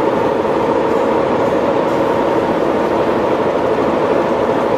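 Steady road and tyre drone inside a vehicle's cab while driving at highway speed.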